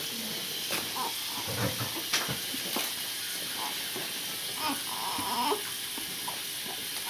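Steady hiss with faint rustles and clicks of a newborn being handled and diapered on hospital blankets, and a brief faint voice about five seconds in.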